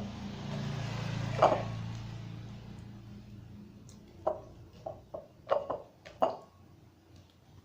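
Homemade slime being stirred and kneaded in a plastic container, with several short, sticky smacks and squelches in the second half. Under the start is a low hum that fades away over the first three seconds.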